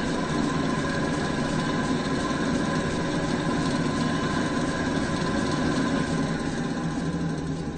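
Large drill press running steadily, a dense mechanical whir with several held tones, beginning to fade near the end.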